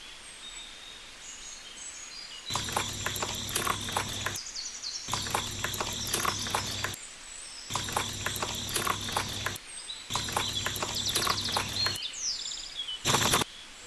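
Birds chirping faintly in the background, broken by four spells of about two seconds each of rapid clicking and tapping that start and stop abruptly, and a short sharp burst near the end.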